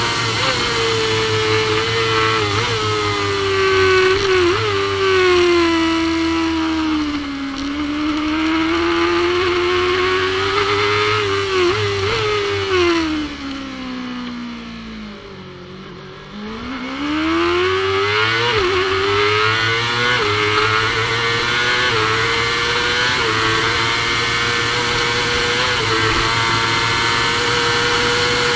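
Supersport racing motorcycle engine heard onboard at full throttle. The rider shuts off and changes down through the gears, the engine note falling in steps to its lowest about two thirds of the way through. Then it accelerates hard with quick upshifts back to a high, steady note, with wind rush over the bike.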